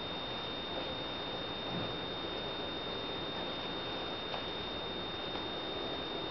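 Steady background hiss with a constant high-pitched whine, and a faint click about four seconds in.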